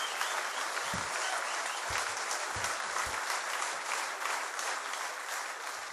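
Concert audience giving an ovation: a dense wash of applause, slowly easing off toward the end.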